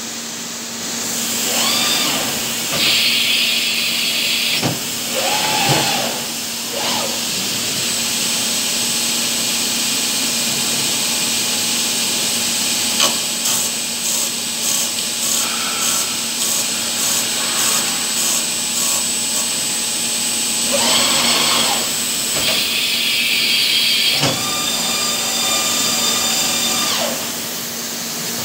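MATEC 30 HV five-axis machining center running with a steady hum. Its axis drives whine, rising and falling, as the head travels at several moments. Through the middle, a high steady whine with a fast regular pattern comes as the spindle works the end of a bent steel tube.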